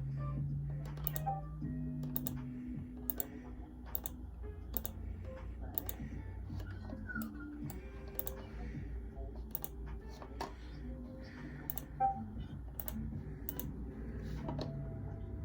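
Typing on a computer keyboard: sharp, irregular key clicks about one or two a second, over a steady low hum and faint held tones.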